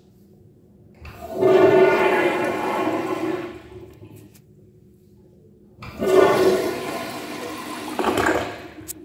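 Toilet flushing: two loud bursts of rushing water, each about three seconds long, with a short quiet gap between them.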